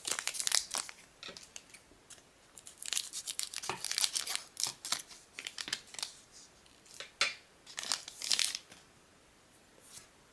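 A foil-lined trading-card booster pack wrapper being torn open and crinkled by hand: several clusters of sharp tearing and crackling rustle with short quiet gaps between them.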